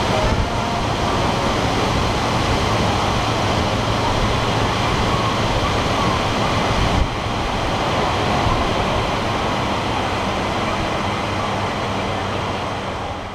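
Steady rush of air from the blower fans beneath the ride floor, blowing up through its holes to float the hover tires, with a low steady hum under it.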